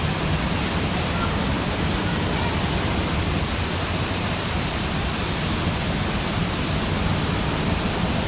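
Steady rushing of water pouring into a canal lock chamber as it fills, turbulent enough to push the boat hard against the lock wall.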